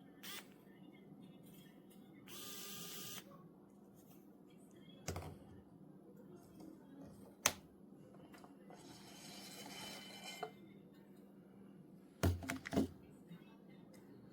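Handling noises from small hard objects: scattered clicks and knocks, the loudest a quick cluster of knocks near the end, with two short whirring stretches, one about two seconds in and one past the middle.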